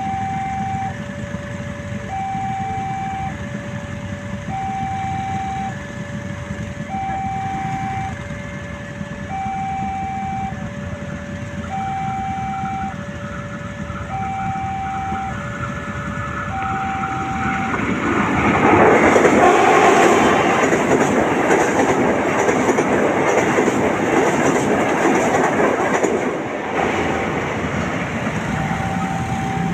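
A railway level-crossing warning siren sounds, alternating two electronic tones high and low about once a second. About 18 seconds in, a train passes through the crossing with a loud rushing, rattling noise that drowns out the siren for about eight seconds. The siren is heard again near the end.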